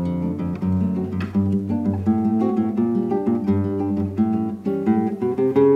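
Seven-string nylon-string guitar (violão de sete cordas) played fingerstyle: a classic choro accompaniment pattern, a moving bass line under plucked chords.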